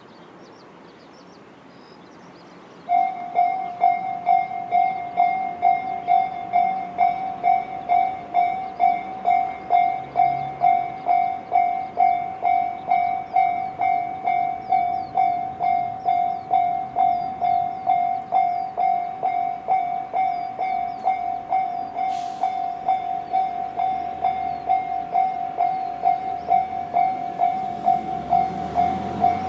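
Japanese level-crossing electronic warning bells (the Tobu Railway 'sound C' type, on both sides of the crossing) start up about three seconds in and ring in a fast, even beat of about two strokes a second, signalling an approaching train. Near the end a train's low rumble starts to build under the bells.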